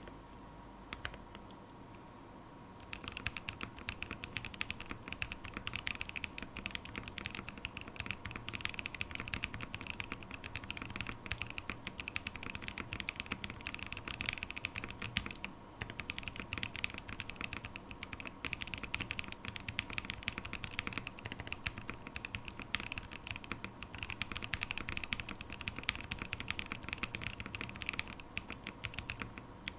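Typing on a Geon Frog TKL custom mechanical keyboard with lubed Gazzew Boba U4T 62g tactile switches, an FR4 plate and PBT keycaps: a fast, continuous run of keystrokes that starts about three seconds in and pauses briefly about halfway through. A faint steady hum runs underneath.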